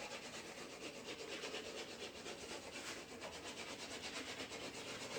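Faint, steady rubbing or scraping on a hard surface with a fast, even pulse.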